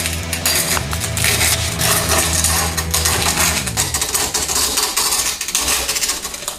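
Coarse 40-grit sandpaper rubbed by hand against the freshly cut edge of a glass bottle, a gritty scraping in quick strokes. A low steady hum lies under the first four seconds and stops.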